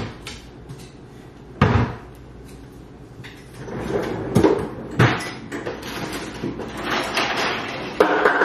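Household clatter of hard things knocked and set down, like cupboard doors shutting and dishes moving: a sharp knock at the start and another a couple of seconds in, then a busier run of knocks and rattling from about three and a half seconds on.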